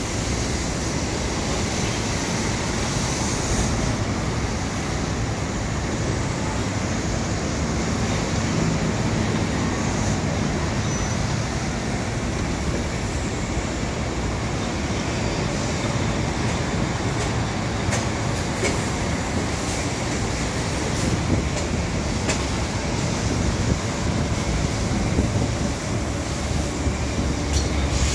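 Kawasaki M9 electric multiple-unit commuter train rolling slowly past below, a steady low rumble of wheels on rail with occasional sharp clicks in the second half.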